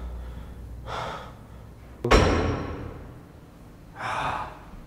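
A door slamming shut about two seconds in: one sharp bang with a short echoing tail. Loud breaths come a second before and two seconds after it.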